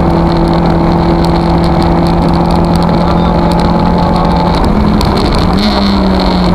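Lada VFTS rally car's four-cylinder engine running hard at steady revs, heard from inside the cabin. About five seconds in the note breaks for a gear change, then carries on at slightly higher revs.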